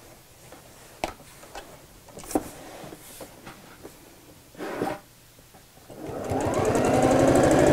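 A few clicks and rustles of fabric being handled, then about six seconds in an electric domestic sewing machine starts and speeds up into fast, steady stitching.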